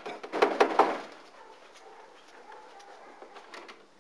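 A man coughing hard in a short fit of several harsh coughs right after drawing on a pipe, a smoker's cough from a sore throat.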